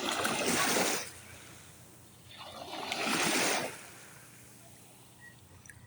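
Waves washing in: two surges of splashing water, the first ending about a second in and the second swelling and falling away over about a second and a half, with a low hiss of water between them.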